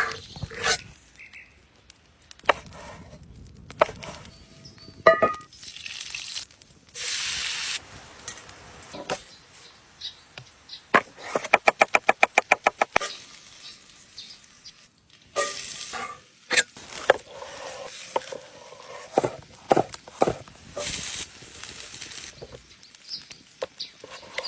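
Outdoor food-preparation sounds: scattered clicks and knocks of utensils and food being handled. Midway there is a quick, even run of about a dozen strikes, and there are a few short stretches of hiss.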